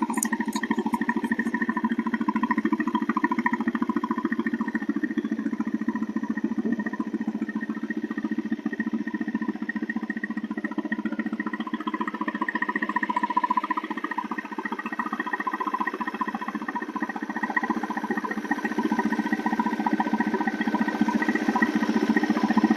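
Diesel Royal Enfield Bullet's single-cylinder engine running steadily with a rapid, even knock, heard for a sound check after its diesel injection pump setting. It gets a little louder near the end.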